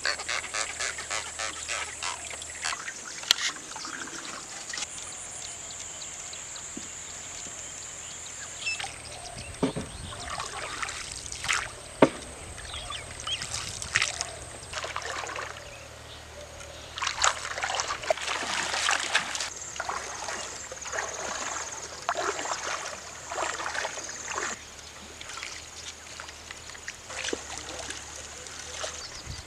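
Water splashing and dripping as a fishing net is hauled and a wooden boat is paddled on a river, with occasional bird calls over a steady high hiss.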